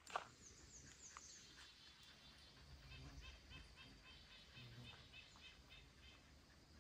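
Faint bird calls in near silence: a few thin, very high notes in the first second or so, then a series of about a dozen short repeated notes, about four a second, from about three seconds in. A single footstep sounds right at the start.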